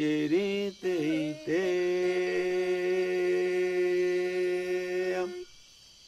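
A solo voice chanting a traditional Yawanawa song with no accompaniment. It sings two short notes that slide in pitch, then holds one long steady note for nearly four seconds, which stops about five seconds in.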